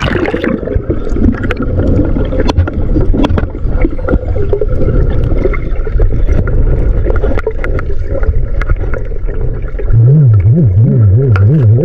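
Muffled underwater noise picked up by a submerged camera: a steady low rumble of moving water with scattered clicks and crackles. About ten seconds in, a loud low hum starts that warbles rapidly up and down in pitch.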